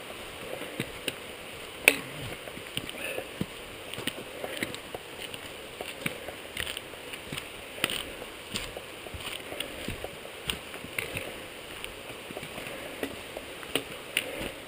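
Hikers' footsteps and trekking-pole tips striking a rocky trail: irregular scuffs, knocks and clicks, the sharpest about two seconds in, over a steady background rush.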